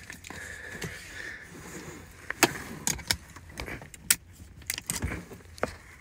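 A car seatbelt being handled: the webbing slides, then the metal latch plate and buckle hardware give a series of sharp clicks and clinks over the second half.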